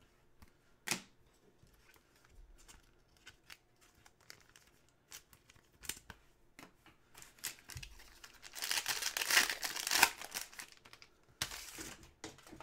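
A foil trading-card pack wrapper being torn open and crinkled: a loud ripping burst lasting over a second about eight and a half seconds in, then a shorter crinkle near the end. Before that there are only light scattered clicks and taps of cards being handled.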